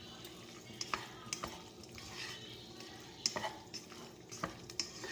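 Wooden spatula stirring chicken and macaroni in a stone-coated pot: irregular scrapes and light knocks of the spatula against the pot.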